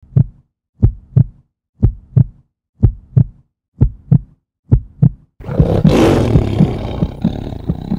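Intro sound effects: a deep double thump like a heartbeat, repeating about once a second, then about five seconds in a loud rushing roar that swells as the treasure chest's lid opens and keeps rumbling.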